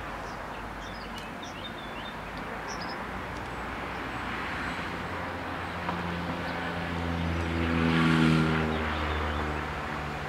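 A motor vehicle passes nearby: its engine grows louder, is loudest about eight seconds in, then fades. Birds chirp in the first few seconds.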